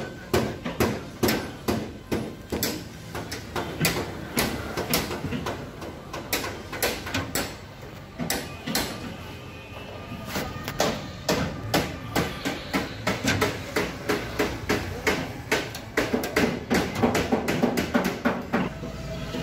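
Hammer blows struck over and over at about two or three a second, with a short lull partway through before they resume.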